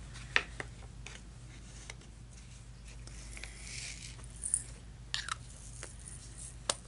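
Small sharp clicks and taps of a diamond-painting drill pen picking up resin drills and pressing them firmly onto the canvas, scattered unevenly, with a soft scraping hiss about three seconds in.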